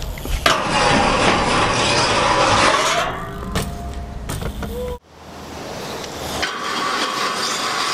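BMX bike tyres rolling over asphalt close by, a steady hiss with a few knocks and a short squeak. The sound cuts off suddenly about five seconds in, and the rolling noise builds up again.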